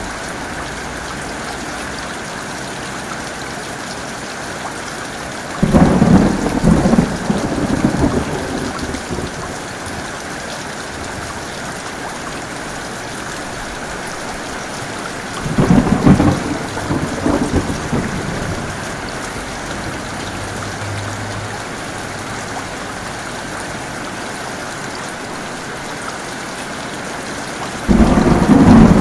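Heavy steady rain with thunder: three sudden thunderclaps, about six seconds in, about sixteen seconds in and near the end, each rumbling on for a few seconds before fading back under the rain.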